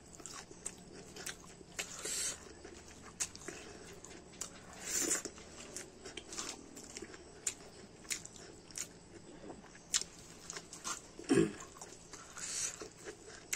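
Close-up eating sounds of a man chewing a mouthful of rice and curry eaten by hand: wet chewing and mouth clicks, with a few louder smacks. Near the end comes a short vocal sound.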